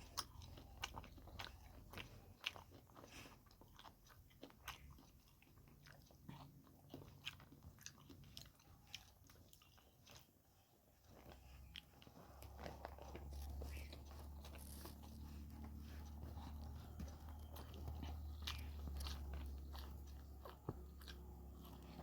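Close-miked chewing and mouth sounds of someone eating spicy pork curry with white rice: many small sharp clicks and smacks from chewing and biting. A steady low hum comes in about halfway through.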